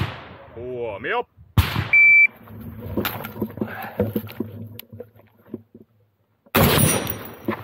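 Electronic shot timer's start beep: one high steady tone lasting under half a second, about two seconds in. A sharp bang comes just before it, and a loud burst of noise comes near the end.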